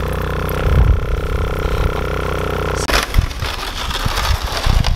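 A running vehicle engine gives a steady hum, with a low thump about a second in. Nearly three seconds in, the hum cuts off abruptly and a rough, noisy rush with scattered knocks takes over.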